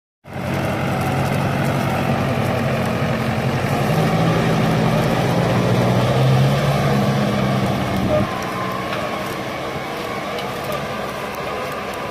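Tümosan 9115 tractor's diesel engine running steadily under load while pulling a five-furrow plough through stubble. It is loud at first, then drops in level about eight seconds in.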